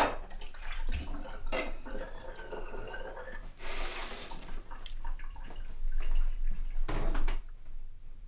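Kitchen work: water and clatter at a kitchen sink, then a knife cutting carrots on a plastic cutting board, with a few sharp knocks.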